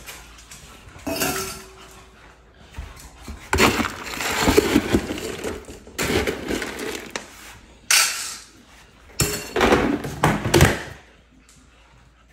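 Dry dog kibble being scooped and poured, rattling in about five bursts of a second or so each.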